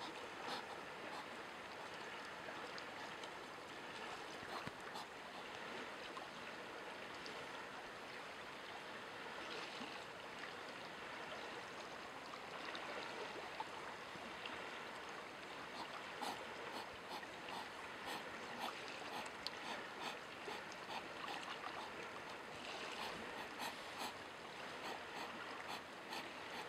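Hedgehogs foraging and chewing close up: a run of small clicks and smacks over a steady hiss, the clicks coming thickest in the second half.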